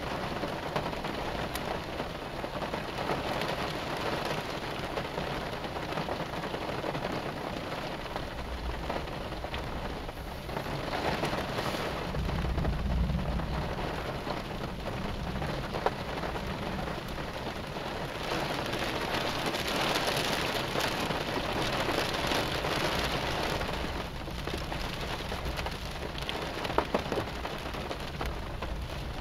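Heavy rain falling steadily, with a low rumble of thunder swelling about a third of the way in and again shortly after.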